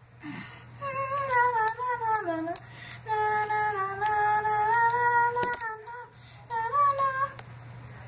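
A child's high voice singing wordless held notes in three phrases, the first falling in pitch at its end, with a few light clicks in between.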